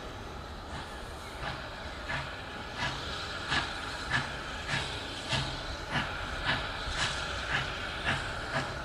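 Steam tank locomotive working a train, with steady exhaust beats just under two a second over a background hiss of steam. The beats grow louder from about a second and a half in as the engine draws nearer.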